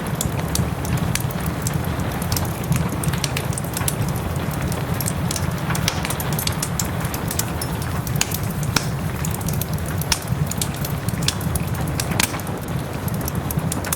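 Wood fire crackling with frequent sharp, irregular pops, over a steady rumble and the hiss of soft rain.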